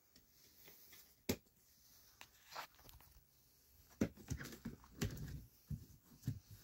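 Hand handling a plastic ammo crate: a sharp click about a second in, then a run of irregular knocks and taps on the plastic lid from about four seconds in.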